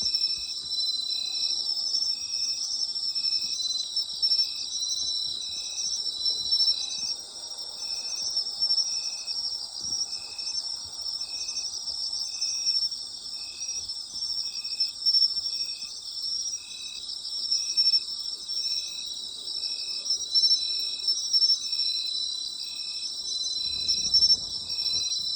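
Night chorus of autumn crickets and other singing insects: a dense, continuous high trilling, with one insect giving short chirps at a steady rhythm of a little over one a second and another long trill coming and going.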